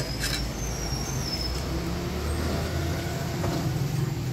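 Steady low rumble of a motor vehicle engine running in road traffic. A couple of light metal clinks right at the start, from a ladle against a steel pan.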